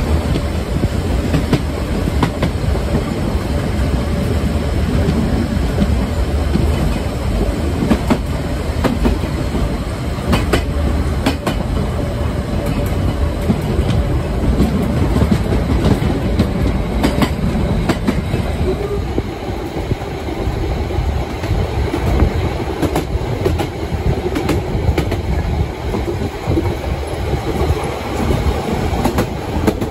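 Steam-hauled narrow-gauge passenger train heard from aboard one of its coaches: the steady rumble and clatter of the wheels running on the track, with scattered sharp clicks. It turns a little lighter after about two-thirds of the way through.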